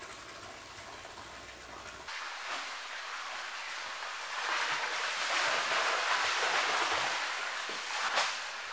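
Salt poured from a sack into a concrete koi pond: a steady rush of grains hitting the water that builds about halfway through and eases off near the end. The salt is being added to bring the pond to 0.6% salinity as a treatment for koi sleeping disease.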